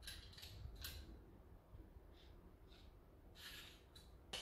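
Faint, short scrapes of a green plastic Y-peeler drawn over cucumber skin: a handful of uneven strokes, with a sharper click near the end.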